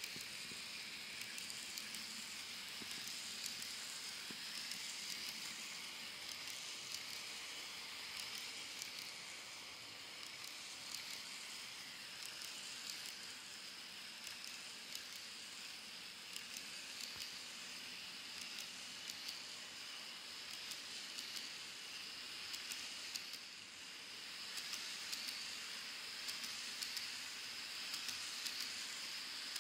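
Model railway container wagons rolling past on the track: a steady high hiss of the wheels with many small clicks running through it.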